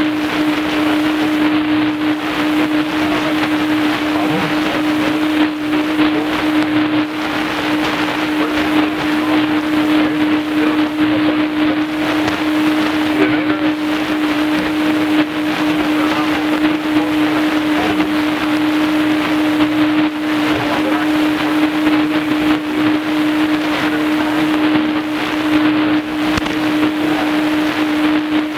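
Shortwave AM reception on a Tecsun PL-310ET portable receiver tuned to 5970 kHz: a steady hiss of static with a constant low whistle running through it, typical of a heterodyne from an interfering carrier. No programme can be made out.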